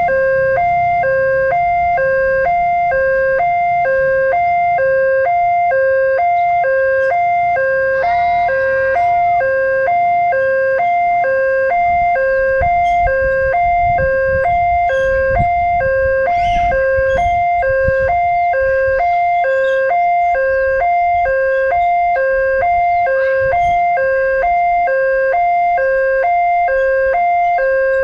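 Railway level-crossing alarm sounding its fast-tempo electronic two-tone warning, alternating quickly and evenly between a high and a low tone: the signal that a train is approaching. A low rumble swells up midway and fades again.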